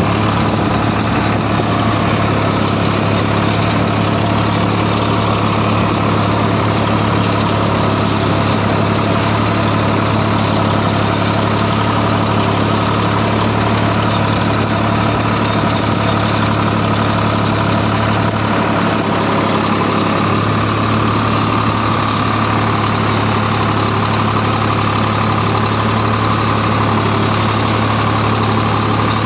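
Swaraj 742 XT tractor's diesel engine running steadily under way, heard from the driver's seat.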